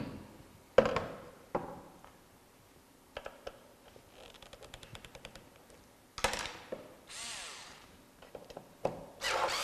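Metal strobe-light box knocked down on a workbench a few times, then small clicks and rapid light ticking from a hand screwdriver working a bottom screw. A cordless electric screwdriver whirs briefly about two-thirds of the way through and starts running steadily near the end, backing out the housing's bottom screws.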